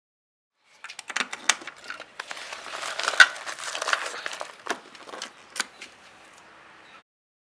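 Handling noise: a run of sharp clicks and knocks over a crinkling, rustling scrape, loudest about three seconds in, then cutting off abruptly.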